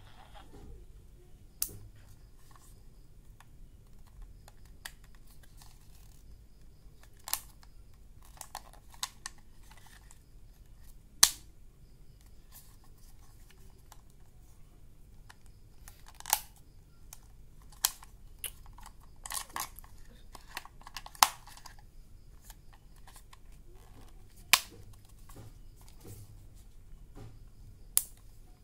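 Plastic case, switches and covers of an AIWA RS-44 pocket radio being handled: about ten sharp clicks and taps at irregular intervals over a faint low hum.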